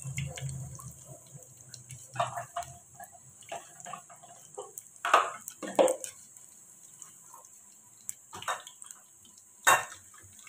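Potato spring rolls deep-frying in a wok of hot oil, the oil sizzling, with about five sharp clinks and scrapes as a wire mesh skimmer knocks against the rolls and the pan, one of the loudest near the end.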